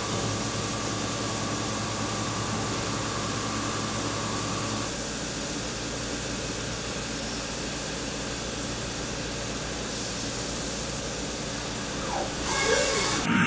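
Doosan DNM5700L vertical machining centre milling titanium with a 3/8-inch end mill under flood coolant: a steady spray hiss and cutting noise with a faint whine that stops about five seconds in. The sound grows louder near the end.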